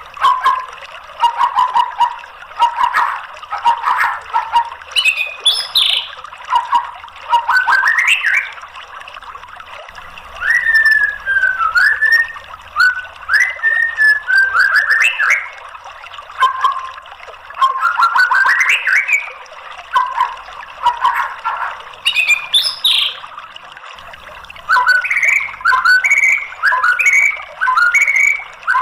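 White-rumped shama singing a varied song of loud whistled phrases, sliding up and down, with quick runs of repeated notes and short pauses between phrases, over a steady background hiss. Near the end it gives a run of short, clipped rising notes.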